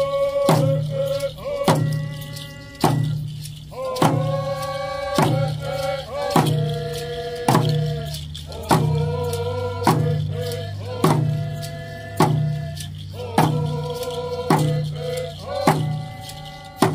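A voice singing long held notes over a steady, even drum beat, about one stroke a second.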